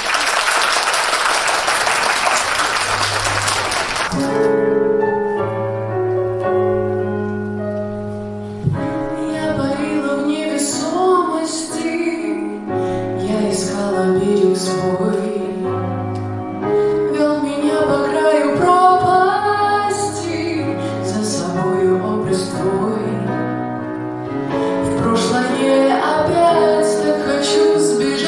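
Audience applause for about the first four seconds, then a slow instrumental accompaniment starts, and from about nine seconds in a woman sings into a handheld microphone over it.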